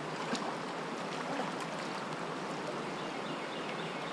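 Steady rush of flowing creek water, with a faint click about a third of a second in.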